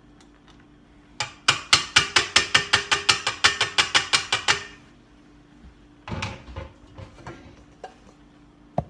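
Kitchen utensil knocked rapidly against a mixing bowl, a fast run of about twenty sharp clinking taps over some three seconds, then a brief scrape.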